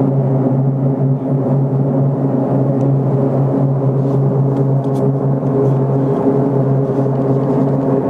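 Loud, steady low droning hum with several overtones, holding one pitch and never rising or fading: the unexplained 'sky noise', likened to a plane that is passing but never passes.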